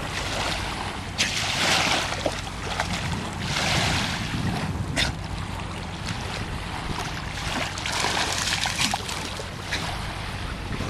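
Wind rumbling on the microphone with water splashing and lapping in the shallows around a swimming dachshund, coming in irregular gusts.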